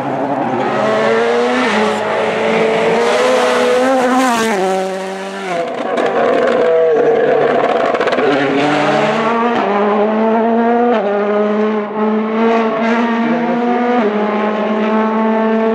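Rally car engine driven hard through the gears, its pitch climbing under acceleration and dropping back at each gear change several times.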